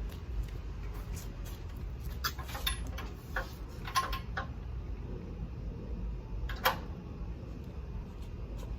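A scattering of sharp knocks and clicks from tools and parts being handled during an engine swap, with the loudest knock about two-thirds of the way through, over a low steady rumble.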